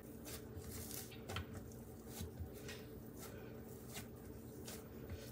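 Hands pressing and folding sticky biscuit dough: soft, irregular squishes and pats, over a faint steady hum.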